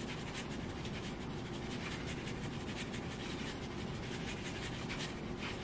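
Salt and pepper being added from their containers over a pan of tomatoes: faint, irregular scratching over a steady background hum.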